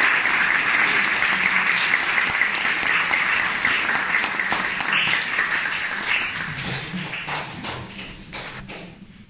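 Audience applauding: many hands clapping at once, dying away over the last few seconds.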